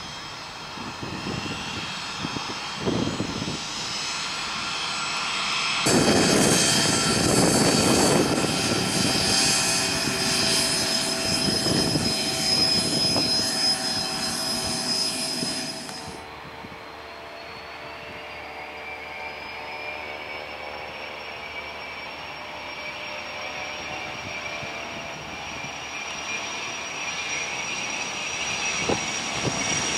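Jet aircraft engines: first an airliner's engines during its takeoff climb. From about six seconds in, a Learjet 45 business jet's twin turbofans whine loudly close by for about ten seconds. Then comes a fainter turbofan whine that rises in pitch, holds steady, and grows louder near the end.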